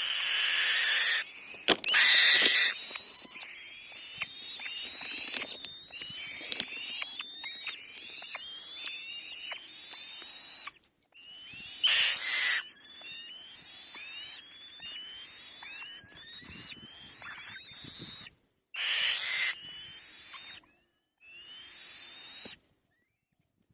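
Nestling birds of prey calling, likely begging for food: a run of short rising squeaky calls, about two a second, broken by a few louder harsh, hissing screeches.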